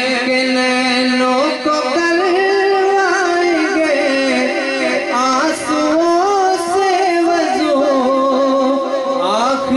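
A man singing a naat into a microphone through loudspeakers: long drawn-out notes with wavering ornaments, sliding up in pitch near the end.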